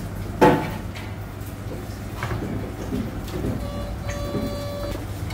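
A sharp metallic clank with a short ring from the large aluminium pot about half a second in, then softer knocks as raw meat pieces are handled into it. Near the end, a steady tone with several pitches sounds for about a second, over a constant low hum.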